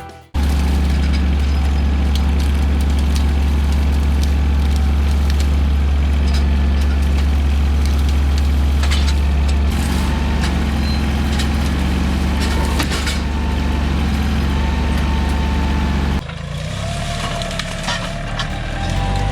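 Heavy engine running steadily at a constant speed, with scattered knocks and cracks over it; the engine sound drops off sharply about sixteen seconds in.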